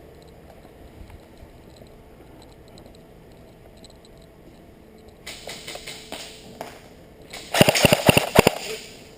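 Rustling that starts about five seconds in, then a quick run of six or so sharp cracks or knocks near the end.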